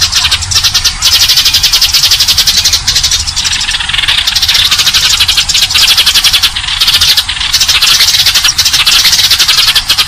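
Eurasian tree sparrows chirping in a loud, dense, unbroken chatter of rapid chirps, many a second. It is a sparrow lure-call recording used to draw wild sparrows in.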